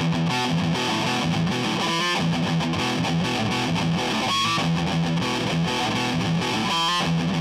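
Background music: distorted electric guitar rock with a steady beat.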